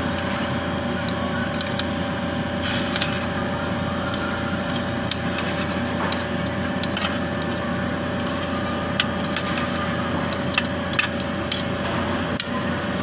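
Metal spoons stirring and scraping frog meat in an aluminium cooking pot, with frequent sharp clinks of metal on the pot's side, over a steady hiss of the pot cooking on a gas stove.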